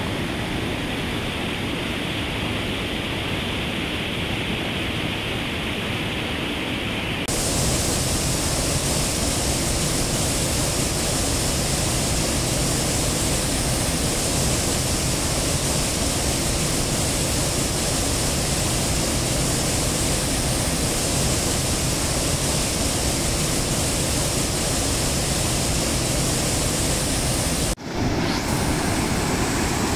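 Steady rush of fast-flowing water, a mountain river or waterfall. About seven seconds in the sound changes abruptly and turns brighter and a little louder, and it drops out for a moment near the end.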